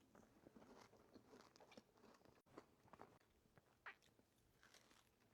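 Faint biting and chewing of a Dubai chocolate cookie: soft, irregular crunches and mouth clicks.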